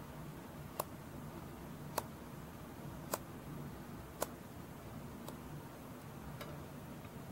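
Large curved scissors snipping deer hair on a mounted hide: six faint, sharp clicks, about one a second.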